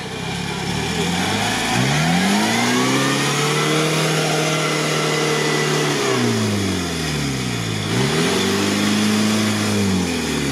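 A UAZ off-road truck's engine revving hard under load as it churns to drive out of a deep mud pit. The revs climb about a second in, hold for a few seconds, fall away, then climb and hold again near the end.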